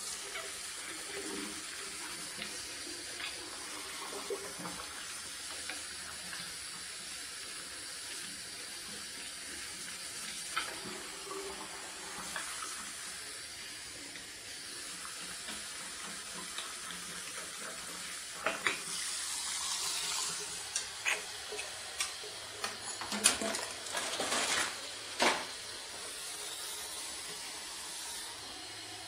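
Tap water running steadily into a bathroom washbasin, with several sharp knocks and clatters about two-thirds of the way through.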